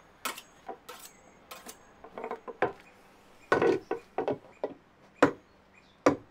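An irregular series of sharp wooden knocks and clatters, about a dozen, as things are handled and set down on a wooden bench. The loudest come about halfway through and near the end.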